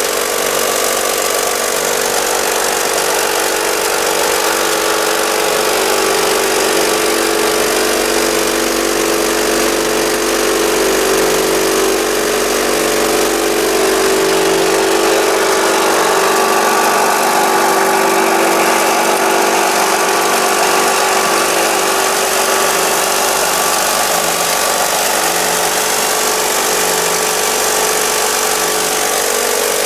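Model vibrating gravel screen running: a steady motor hum under the rattle of stones shaking across the screen deck and dropping into a dump-truck bed.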